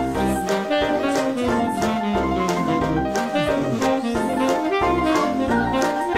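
Instrumental background music with a steady beat of about two strikes a second.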